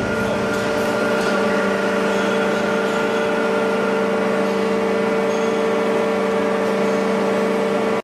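Tiger 44 scrap baler's hydraulic power unit running, a steady even hum with a fixed pitch.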